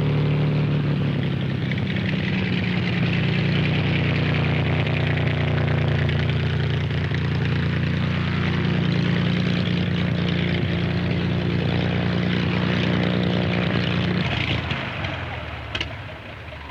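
Small propeller plane's engine running steadily, then fading away near the end.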